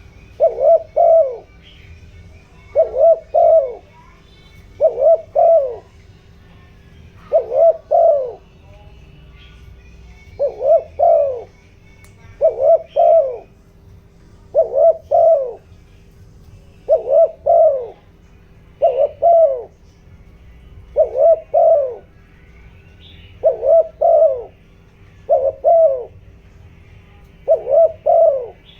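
Spotted dove cooing: a short phrase of two or three low coos, repeated about every two seconds. It is the urgent 'thúc gù' call of a decoy dove, used to excite wild doves and get them calling.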